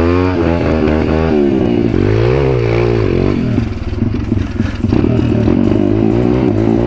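MRF 140 pit bike's single-cylinder four-stroke engine being revved up and down while riding through mud and slush. Its pitch rises and falls repeatedly for the first few seconds, then holds steadier with a rattling clatter from about halfway in.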